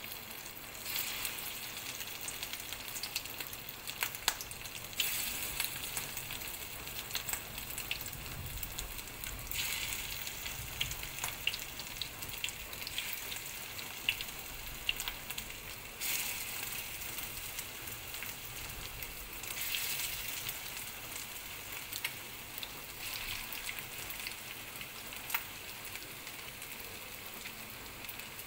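Raw beef meatballs frying in hot oil in a pan: a steady sizzle with crackles and spits that swells several times as more meatballs are laid in.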